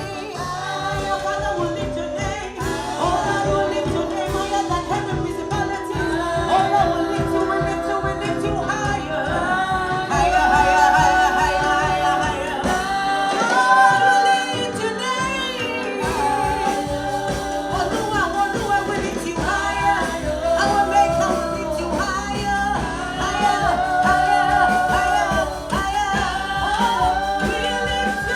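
Gospel singing with band accompaniment: a sung melody over a steady beat and bass line, with the bass dropping out briefly about halfway through.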